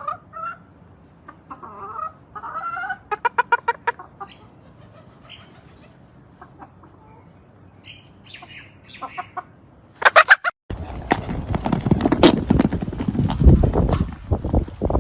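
A bird clucking and squawking in short calls, with a quick run of clucks about three seconds in. About eleven seconds in it gives way to a loud, steady clattering rattle.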